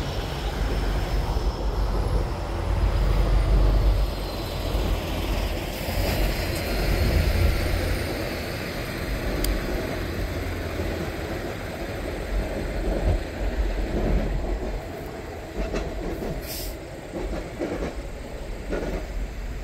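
A long Union Pacific passenger train rolling past: a low rumble from the trailing diesel locomotive in the first few seconds, then the passenger cars' wheels clattering over the rails, fading as the train draws away.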